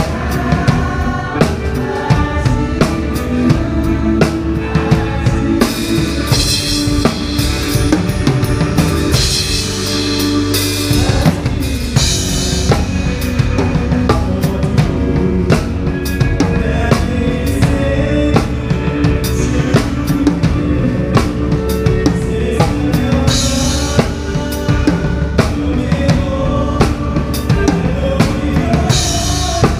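Acoustic Ludwig drum kit played to a worship song, with a steady kick-and-snare groove over a pitched band accompaniment. Crash cymbals ring out at several points.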